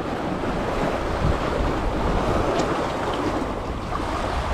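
Steady wash of sea waves, with wind blowing across the microphone.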